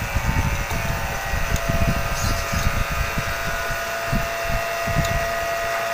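Refrigeration vacuum pump running steadily, pulling a vacuum on a refrigerator's sealed system through the manifold gauge hoses before recharging with refrigerant. A thin steady whine joins in under a second in.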